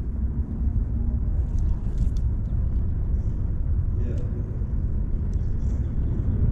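Steady low rumble of road traffic crossing the concrete highway bridge overhead, heard from beneath the deck, with a few faint ticks.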